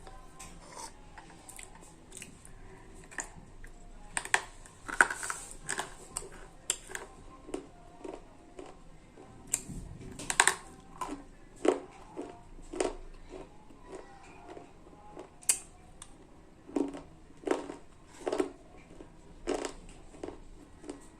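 Slate pencils being bitten and chewed close to the microphone: irregular sharp, brittle crunches and crackles, some much louder than others, coming in clusters with short pauses between.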